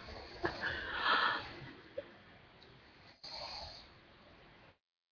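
A sleeping woman snoring: one rasping, wheezy snore about a second in, then a softer breath around three seconds in. After that the sound cuts out to dead silence.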